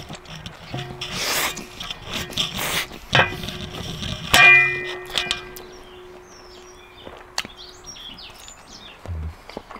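Noodles being slurped and eaten, with a sharp metallic clang that rings briefly about four seconds in: a utensil striking the pot. Small birds chirp in the background in the second half.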